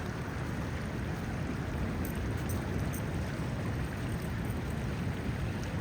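Steady rushing of a shallow freshwater creek running into the ocean, a constant even wash of water without a break.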